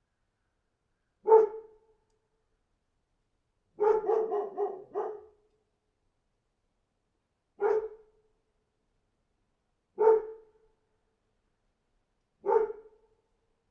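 A dog barking: one bark, then a quick run of about five, then three single barks a couple of seconds apart, with dead silence between them.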